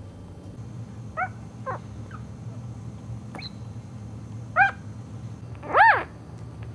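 Two-week-old Cairn Terrier puppy crying: about six short, high squeaky whimpers, each rising and falling in pitch, the last one the loudest near the end.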